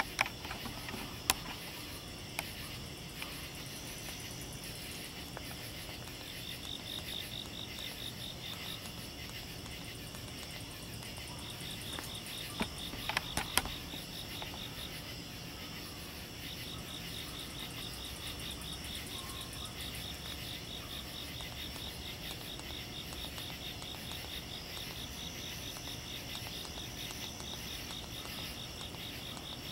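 Night insects trilling in a fast, high-pitched pulsed chirp. It starts a few seconds in, pauses, then goes on steadily over a faint outdoor hiss. A few sharp clicks come near the start and again about halfway through.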